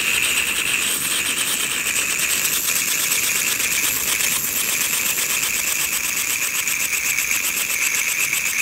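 Handheld liquid nitrogen cryospray unit hissing steadily as its jet freezes a skin mass through a cone guard, with a fast flutter in the hiss. This is the 15 to 20 second freeze of a cryotherapy cycle.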